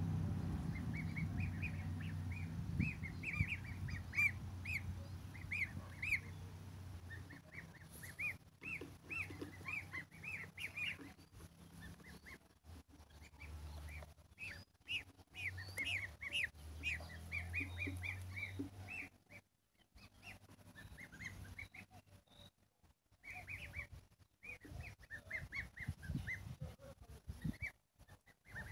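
Small birds chirping: quick bursts of short, high chirps again and again. Under them, the low steady drone of an engine fades out about two-thirds of the way through.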